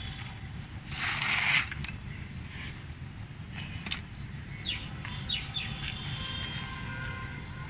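Loose soil and sand mix poured from a plastic scoop into a plastic crate in one burst about a second in, then hands scraping and spreading the soil. A few quick bird chirps come past the middle, over a steady low background rumble.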